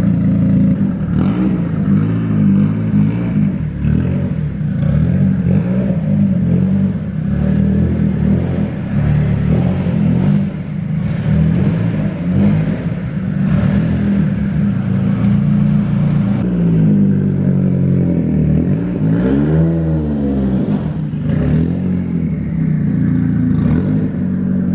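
Nissan 240SX's SR20DET turbocharged inline-four running as the car is moved, its turbo manifold gasket freshly replaced. The engine revs up and back down once, about 20 seconds in, and scattered knocks and clatter are heard over it.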